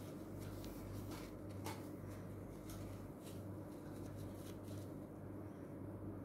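Tissue paper rubbing and crinkling against a painted glass jar: a run of short, faint scratchy sounds that stops about five seconds in, over a steady low hum.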